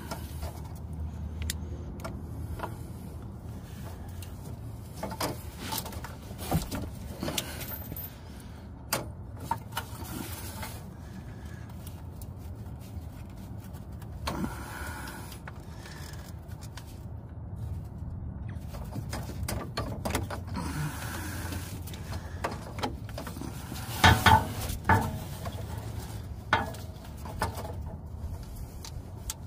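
Scattered clicks, knocks and brief scrapes of hands working a 2009 Chevy Cobalt's plastic EVAP charcoal canister and its hose quick-connectors loose, with a cluster of sharper clicks near the end, over a steady low hum.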